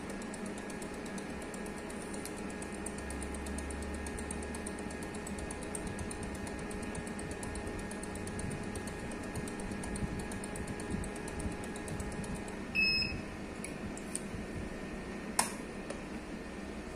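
Sensa Core ST-200 Plus electrolyte analyzer running steadily, its pump ticking faintly and quickly as it aspirates daily cleaning solution. A short beep sounds about 13 s in, and a sharp click follows a couple of seconds later as the sample door is shut.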